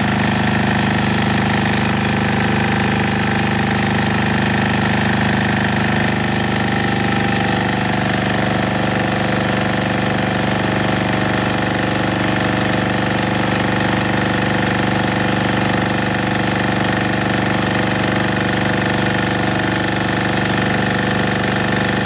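Yanmar L40A single-cylinder diesel engine driving a generator, running steadily on ordinary diesel under a heater load of about 1.3 kW.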